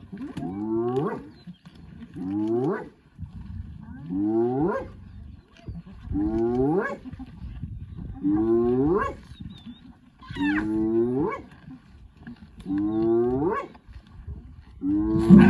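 Spotted hyena whooping: a series of seven whoops about two seconds apart, each sliding upward in pitch. A louder, jumbled burst of calling starts near the end.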